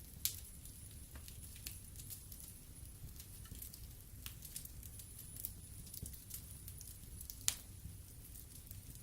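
Wood fire burning in a fireplace: irregular crackling with small snaps over a low steady rumble of the flames, and two sharper pops, one just after the start and one near the end.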